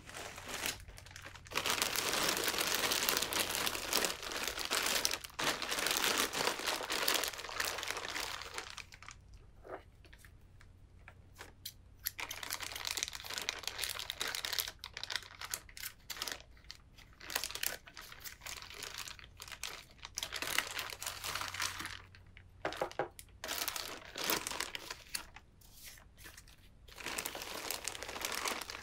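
Plastic courier mailer bag crinkling and rustling as it is handled and cut open with scissors. The crinkling is loudest and most continuous for the first several seconds, then comes in shorter, separate crackles.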